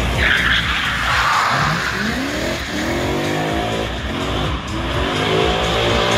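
Drift car's tyres squealing and skidding for about the first second and a half, then the engine revving up in three rising surges.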